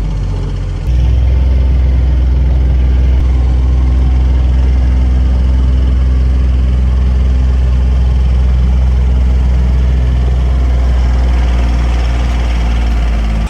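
A motor running steadily with a loud, low hum. It gets louder about a second in and stops abruptly.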